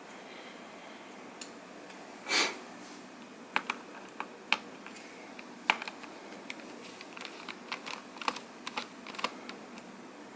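Small, sharp, irregular clicks and taps of a screwdriver and tiny screws on a laptop's bottom panel as the screws are taken out. The clicks come more often in the second half, and one louder, brief rush of noise comes about two and a half seconds in.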